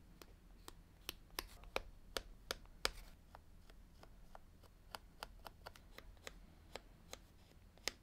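Faint, irregular small clicks and taps, about two or three a second, from a bone folder pressing and rubbing down glued pieces of vegetable-tanned leather, with hands handling the leather.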